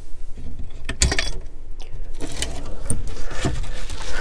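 Metal hook-and-eye latch being unhooked from a wooden coop door, with a series of clicks, rattles and knocks as the door is handled; the sharpest knock comes about a second in.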